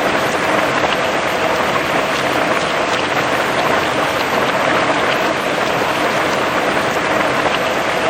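Heavy rain falling steadily on grass and trees, a dense even patter with countless fine drop ticks.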